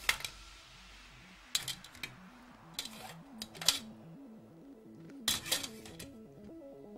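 Metal fork clinking and scraping against an aluminium momo steamer pot as steamed momos are lifted out, in several short clusters of clinks. Soft background music with a stepping melody plays underneath.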